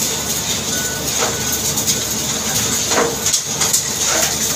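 Steady machine noise with a hiss, with three brief knocks about one, three and four seconds in.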